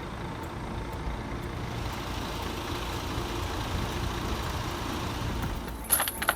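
Heavy machinery engine, most likely the crane's, running steadily with a low rumble. A few sharp clicks come near the end.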